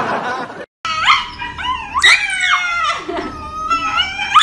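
Shiba Inu howling and yelping while its paw is held, in a run of shrill cries that slide up and down in pitch. A short hiss is heard first and cuts out just before the cries start, about a second in.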